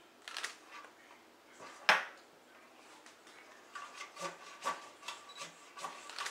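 A spatula scraping and rubbing butter around the inside of a metal springform cake tin in short, irregular strokes, with one sharp knock against the tin about two seconds in.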